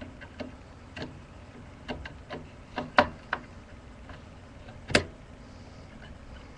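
Scattered light clicks and taps of plastic and metal computer parts being handled, about eight in all, with one sharper click about five seconds in.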